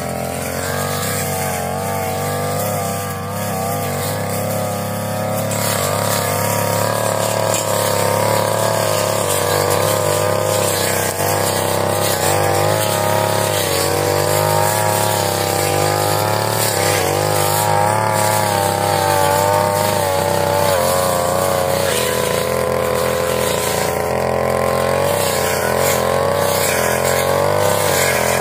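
Brush cutter engine running at high speed while cutting grass, its pitch wavering up and down as the load changes.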